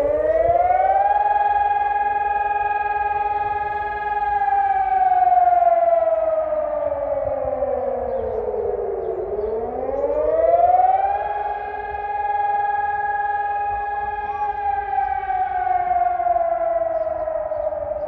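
Civil defence warning siren wailing during a test alarm. Its pitch rises over about two seconds, holds high for a few seconds, then slowly falls, twice over: the rising-and-falling tone of the German public warning signal.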